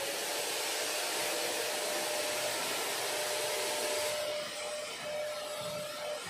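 Electric stick vacuum cleaner running steadily as it is pushed over synthetic grass, a rushing hiss with a steady motor whine. The hiss softens about four seconds in.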